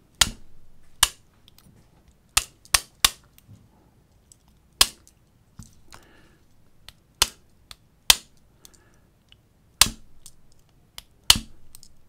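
A small hammer striking a hand-filed bump key in a Master Lock 318DLH padlock's keyway: about ten sharp taps at uneven intervals, some in quick runs of two or three, an attempt to bump the lock open.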